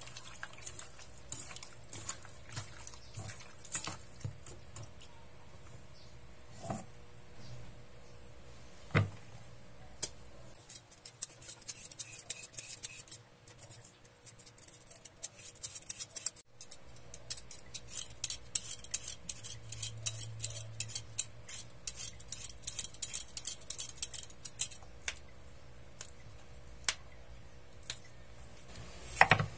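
Kitchen prep sounds. First, hands mix chicken pieces in a stainless-steel bowl, with scattered soft clicks. Then a metal Y-peeler scrapes a raw potato in quick repeated strokes, and green beans are snapped near the end.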